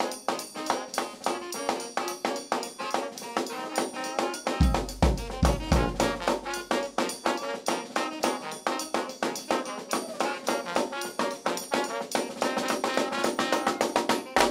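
A New Orleans-style brass band playing: trumpet and trombone over a steady, quick drum-and-cymbal beat. A few heavy low hits come in about four and a half seconds in.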